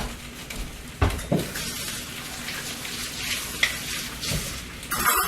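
Chicken, shrimp, bacon and mushrooms sizzling in a pan, with a few sharp knocks and a short louder burst of noise near the end.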